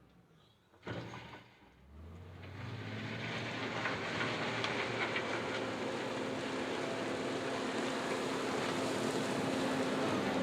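A single thump about a second in, then the diesel engine of a JCB 426ZX wheel loader comes in with a steady low hum, growing louder over the next couple of seconds and then running steadily.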